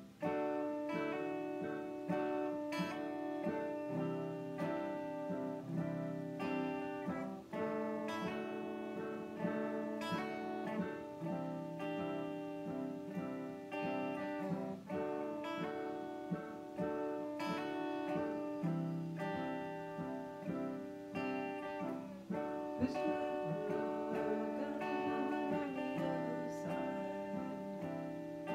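Acoustic guitar strumming and picking chords, with an electric keyboard playing along; an instrumental passage of a slow song with no voice.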